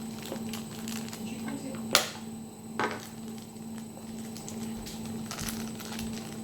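Plastic toy packaging being handled and torn open: scattered small crackles and clicks, with a sharp snap about two seconds in and a smaller one shortly after.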